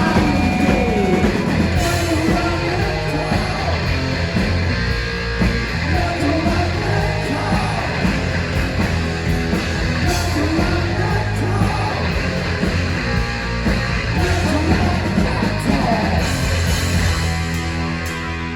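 Heavy metal band playing live and loud: distorted electric guitars over bass and drums, with no break in the music.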